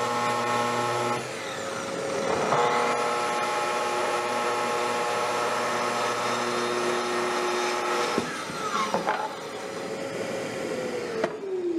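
Festool TS75 plunge track saw, with its dust extractor running, cutting through a thick wet sycamore slab. About a second in the saw loses power briefly and winds back up, a pause that is possibly from a finger on the trigger. About 8 s in the saw is released and winds down, and near the end the extractor winds down in a falling tone.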